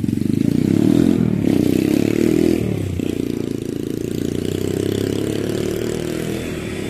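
Motorcycle engine running close up, climbing in pitch for the first couple of seconds, dropping sharply about three seconds in, then running steadily.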